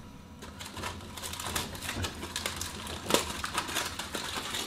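Aluminium foil crinkling and a metal pot clinking as they are handled: an irregular run of small clicks and rustles, with a sharper click about three seconds in.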